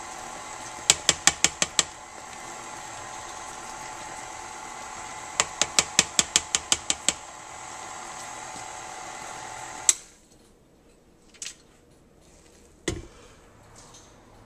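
KitchenAid Artisan stand mixer running steadily as its flat beater mashes potatoes in a stainless steel bowl. Twice there is a run of rapid clicks as a spatula knocks against the turning beater. About ten seconds in, the motor is switched off with a click and stops abruptly, and a single thud follows as the tilt-head is raised.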